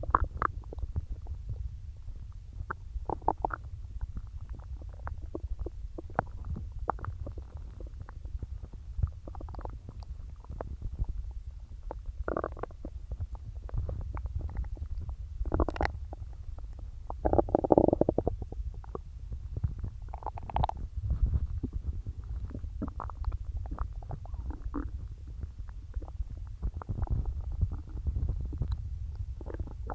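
Stomach gurgling from a belly filled with soda and swallowed air. A steady low rumble runs under many short pops and squeaks, with one longer, louder gurgle a little past the middle.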